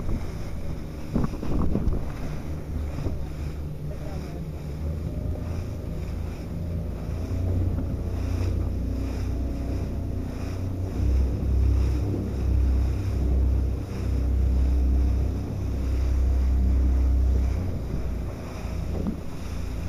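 Wind buffeting the microphone over the rush and splash of water as a boat runs fast through choppy sea, with spray hitting close by. The rumble is heaviest in the second half.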